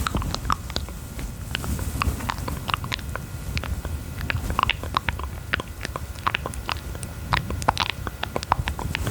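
Close-miked ASMR mouth sounds: wet clicks and smacks of the lips and tongue, coming irregularly several times a second, over a low rumble.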